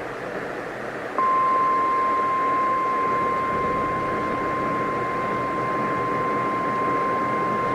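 NOAA Weather Radio warning alarm tone: a single steady 1050 Hz tone that switches on about a second in and holds, over radio static. The tone signals that a warning broadcast is about to follow.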